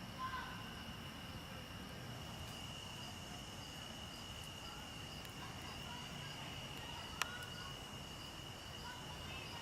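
Faint outdoor ambience dominated by insects buzzing steadily in a high, even tone, with a few faint chirps and a single sharp click about seven seconds in.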